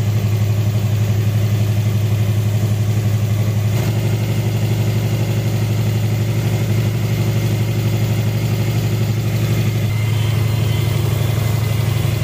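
Subaru EJ20 turbocharged flat-four engine idling steadily while it warms up, just after a fresh O2 sensor was fitted.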